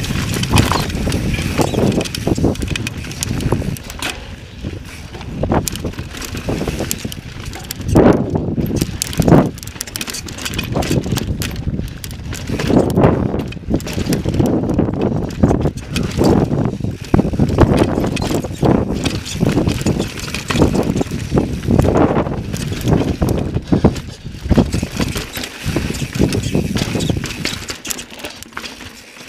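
Mountain bike riding over rough sandstone: knobby tyres rumbling on rock, with irregular knocks and rattles from the bike as it drops over ledges, and wind on the microphone. It eases off near the end.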